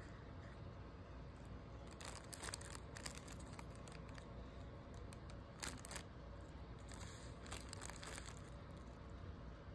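Thin plastic crinkling and rustling in a few short spells: about two seconds in, near six seconds, and again around seven to eight seconds.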